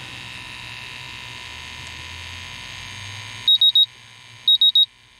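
MultiRAE multi-gas detector sounding its alarm as it is held over gasoline vapors: groups of four rapid high beeps, about one group a second, starting about three and a half seconds in.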